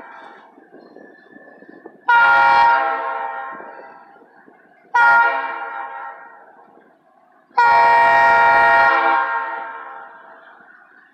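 A GE B23-7 diesel locomotive's air horn sounding a chord in separate blasts: one at about two seconds, a short one at about five seconds and a longer one near eight seconds. Each dies away over a second or two. The tail of an earlier blast fades out at the start.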